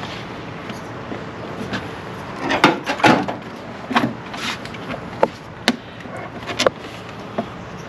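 Clicks and knocks of intake parts being handled and pushed back into place on a Mustang engine: a quick cluster of louder knocks a few seconds in, then single sharp clicks about a second apart.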